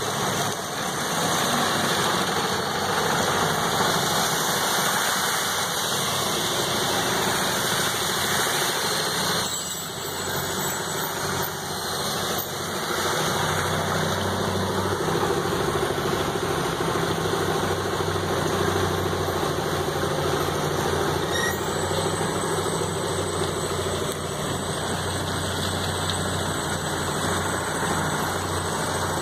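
Road traffic on a rain-wet street: a steady hiss of rain and wet tyres with vehicle engines running close by. From about ten seconds in, a nearby engine idles steadily under the hiss.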